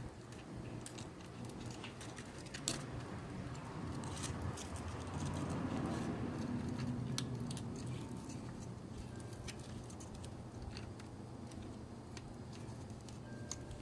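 Faint clicks and light scrapes of steel feeler gauge blades being handled and slid between connecting rods to check side clearance, over a steady low hum.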